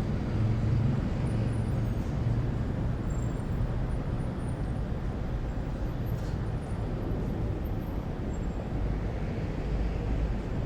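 City ambience: a steady low rumble of distant traffic, with an engine drone that fades over the first few seconds and faint high-pitched chirps scattered through.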